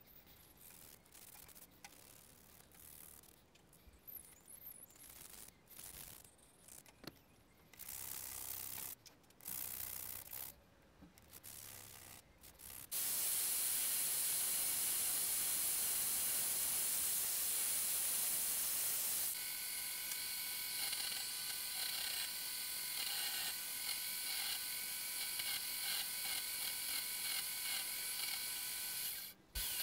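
Small metal lamp parts rubbed by hand on sandpaper, a quiet intermittent scraping; then, a little before halfway, an electric drill with a wire wheel starts up suddenly and runs steadily loud, brushing rust and grime off a threaded metal lamp tube held against it. Later in the run a steady whine of several tones comes in over the brushing noise, and the drill stops shortly before the end.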